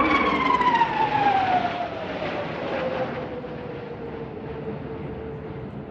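Jet aircraft flying past, its engine whine dropping steadily in pitch as it goes by and then fading away.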